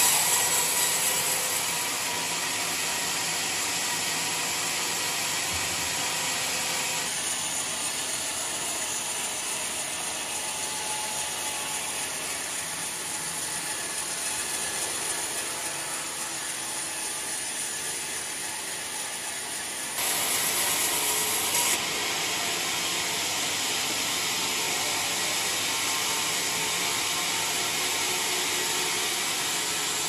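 Vertical band sawmill blade running through a mahogany log, giving a steady mechanical cutting noise. It is briefly louder about twenty seconds in.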